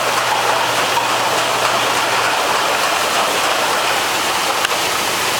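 Automated rotary packaging line running: a steady mechanical noise of machinery and conveyor, with a faint low hum that stops about two seconds in and a single sharp click about four and a half seconds in.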